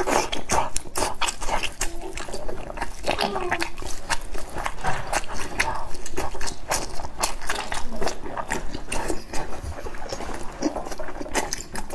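Close-miked wet chewing and lip-smacking of fatty braised pork belly, with many quick sticky clicks and smacks.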